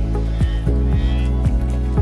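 Background music with a steady beat: sustained bass and pad tones over a deep kick drum about twice a second.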